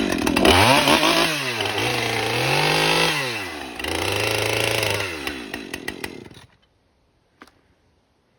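Husqvarna 545 Mark II two-stroke chainsaw running at high speed while cutting through a cake. Its pitch dips and climbs back twice. It then drops to idle and shuts off about six and a half seconds in.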